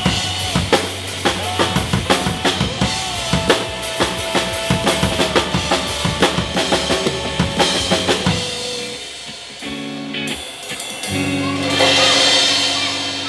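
Live drum kit, with kick, snare and rimshot hits, played over a rock backing track that carries bass and a sustained melody. The drumming stops about eight and a half seconds in and the backing track goes quieter. A brief swell of noise follows near the end.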